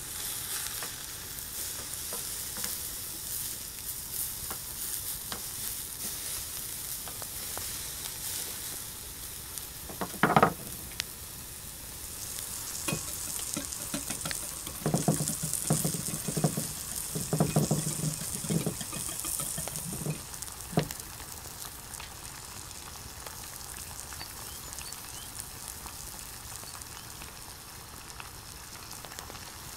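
Beef steaks sizzling on a hot cast-iron charcoal grill, a steady hiss. One sharp knock about ten seconds in and a run of short knocks a few seconds later break through the sizzle.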